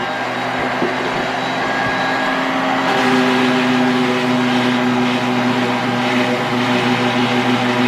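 Electric power sander running steadily on wood with a droning motor hum, its note shifting slightly about three seconds in.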